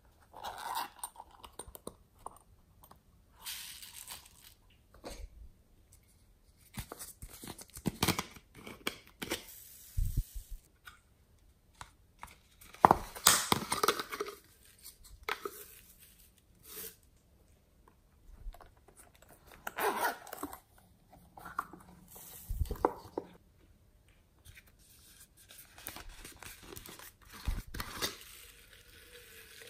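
Close handling sounds: the zip of a strawberry-shaped silicone pouch being worked, then plastic bottles of foam beads opened and the beads shaken out onto slime. These come as irregular short scrapes and rattles, loudest about thirteen seconds in.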